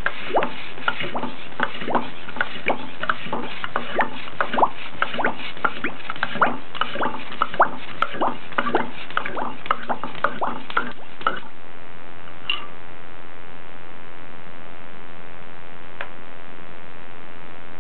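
A rapid, irregular run of short clicks and pops, two or three a second, over a steady hiss; they stop about eleven seconds in, leaving the hiss with one or two faint blips.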